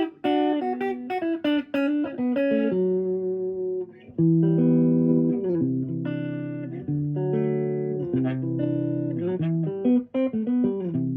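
1960 Fender Jazzmaster electric guitar on its neck pickup, played clean through a 1959 Fender Champ amp: a quick run of picked notes, then chords left ringing from about four seconds in. Low frets and nut leave it a little buzzy.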